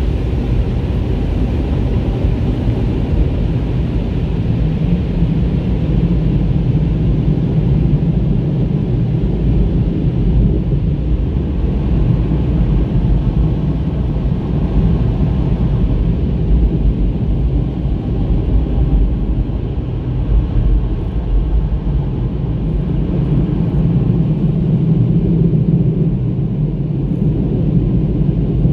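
Steady low rumble heard from inside a car's cabin.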